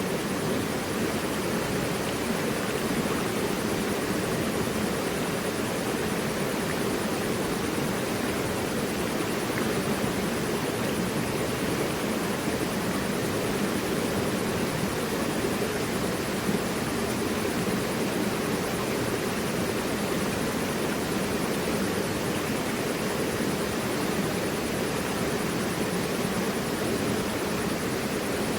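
Mountain river rushing over rocks: a steady, even rush of water.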